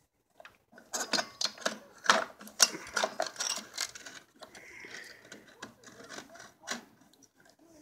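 Irregular metallic clicks and rattles of pocket bike engine parts being worked by hand while the ignition coil and its wire are pulled loose, densest in the first half, with a softer rustle about five seconds in and a few last clicks near the end.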